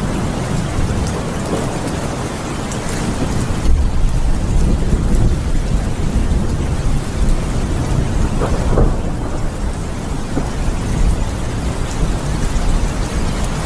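Steady rain with a deep rumble of thunder underneath, swelling about four seconds in.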